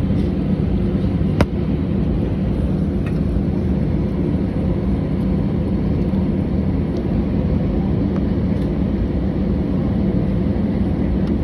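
Cabin noise inside an Airbus A319 taxiing: a steady low rumble of the engines at taxi power with a hum, and one sharp click about a second and a half in.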